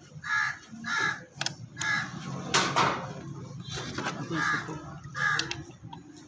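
A crow cawing over and over in short, harsh calls, with a few sharp clicks among them.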